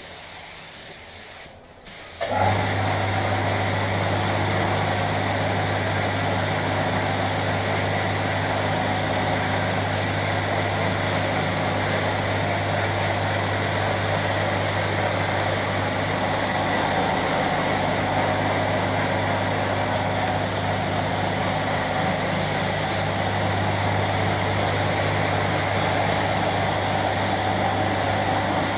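A short hiss of compressed air, then about two seconds in an electric air compressor starts and runs steadily with a low hum and a loud rush of air.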